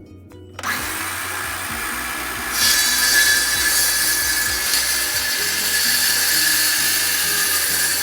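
Electric power tool working wood: it starts about half a second in and runs steadily with a high whine, getting louder at about two and a half seconds in as it bites harder.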